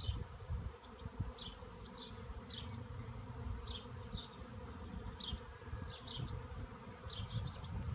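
A swarm of honeybees buzzing in a steady hum as they fly around the cluster settling on a cherry branch. Many short, falling high chirps sound over the hum.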